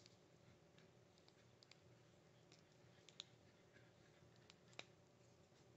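Near silence with a few faint, sharp clicks of small plastic parts as a mini figure is handled and set on its black plastic stand; the two clearest clicks come about three seconds in and near the end.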